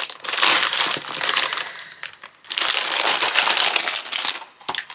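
Thin clear plastic packaging and loose Ziploc bags crinkling as they are handled and pulled apart, in two long stretches with a short pause about two seconds in.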